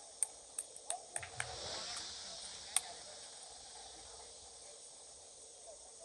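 Sharp smacks of a sepak takraw ball being kicked during a rally, several in quick succession in the first three seconds, over a steady high hiss.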